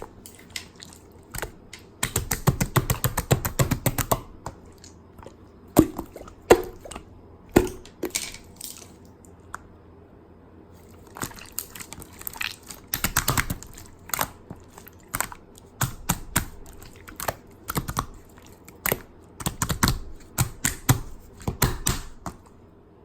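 Hands squishing, poking and pressing clear slime: many quick sticky clicks and pops, in dense runs about two seconds in and again around twelve seconds, with a quieter lull near the middle.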